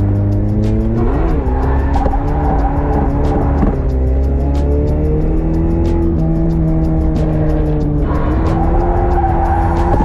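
Toyota AE86 Sprinter Trueno drift car heard from inside the cabin, its engine revs rising and falling as it is held through a drift, with tyres squealing.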